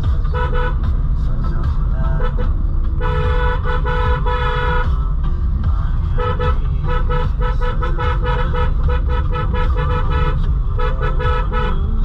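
Hyundai Creta horn fitted to a Maruti Suzuki Celerio, honking, heard from inside the car over low engine and road rumble. A short toot comes first, then a long blast about three seconds in, then a quick run of short toots from about six to ten seconds in, and one more toot near the end.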